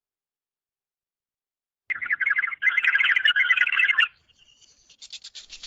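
Bird calls: after a silent start, a loud, rapid chattering call begins about two seconds in and lasts about two seconds, followed near the end by a fainter, higher-pitched run of quick notes.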